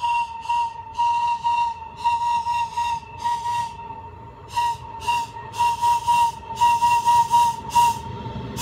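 Italian E464 electric locomotive's whistle sounding as the train approaches: a steady high tone broken into a long run of short, loud blasts, about two a second, kept up throughout.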